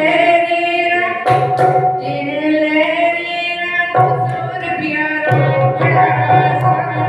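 A woman sings long, held melodic notes into a handheld microphone, amplified. A low steady tone sounds beneath her voice from about a second in, with a short break past the middle.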